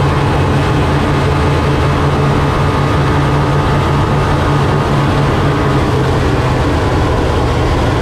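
Onboard sound of a 2JZ-powered land-speed streamliner running at over 300 mph: a loud, steady drone of several tones over rushing noise. The pitch eases slightly lower near the end as the car slows.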